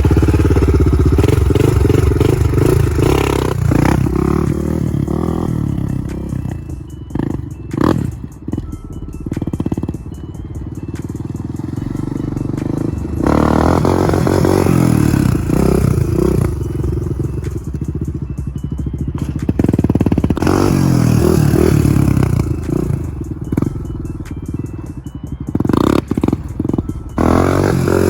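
Honda TRX400ex quad's single-cylinder four-stroke engine revving hard and backing off again and again as the throttle is worked to hold the quad in wheelies, with several quieter dips between loud pulls.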